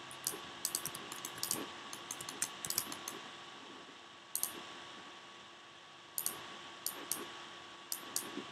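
Computer keyboard and mouse clicking in quick irregular clusters, with a pause of about a second midway.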